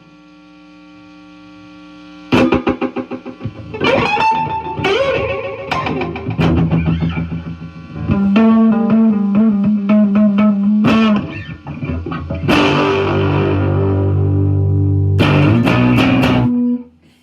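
Electric guitar played through fuzz and delay. A fading tail gives way, about two seconds in, to picked notes and strummed chords whose echoes repeat and stack into held tones, before the sound cuts off suddenly near the end.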